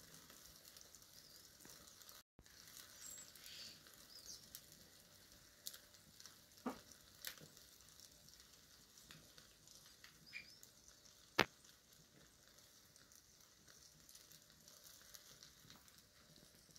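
Faint sizzling of fish frying in its own fat inside aluminium foil on wood-fire embers, with scattered crackles and pops from the fire; one sharper crack about eleven seconds in.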